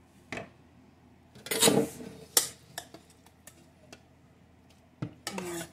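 A spoon scraping and knocking against a stainless steel pot as cooked chicharrón is scooped out into a plastic blender jar. There is a scrape about a second and a half in, then a few sharp clicks and ticks, and another scrape near the end.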